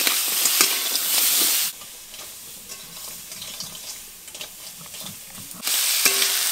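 Crab claws sizzling as they fry in oil in a metal wok, stirred and scraped with a spatula. The sizzle drops to a much quieter background for about four seconds in the middle, then comes back.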